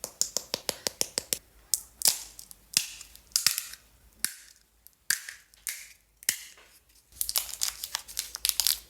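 Crisp fuchka shells being handled and cracked open: a quick run of sharp clicks at first, then scattered cracks, and a dense crinkly rustle near the end.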